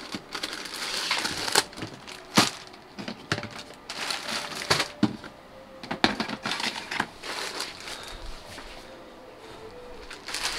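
Plastic zip-lock bags of LEGO parts crinkling and rustling in the hand, with irregular clicks and knocks of clear plastic storage bins being handled.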